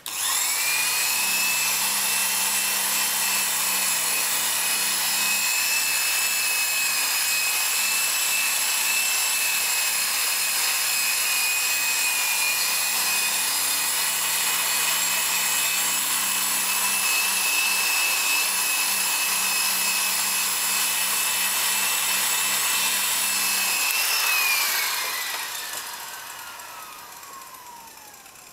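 Power drill spinning a foam buffing pad over a wet, lacquered burl-wood trim panel: the motor starts and runs at a steady high whine with the pad rubbing the surface. Near the end it is switched off and the whine falls in pitch and fades as the pad spins down.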